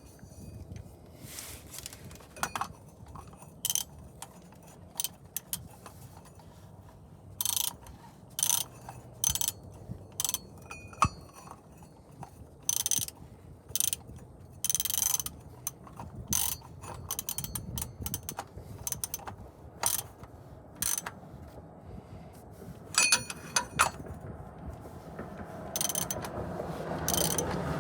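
Ratchet wrench clicking in short, irregular bursts, with tools and parts clattering now and then. The sound gets louder and busier near the end.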